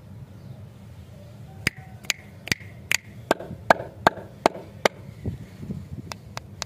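Fingertips tapping on paper-wrapped lollipop candies in a run of about nine sharp, evenly spaced taps, a little over two a second, then lighter taps near the end.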